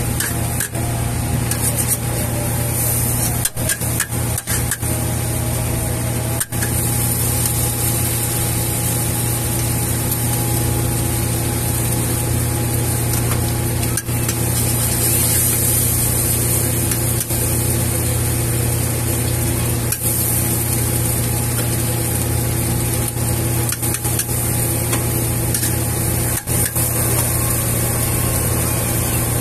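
Fried flat rice noodles (kuey teow) sizzling in a large carbon-steel wok over a steady low roar, with a metal spatula scraping and clanking against the wok every few seconds. The sizzle grows louder about halfway through as an egg goes into the hot oil.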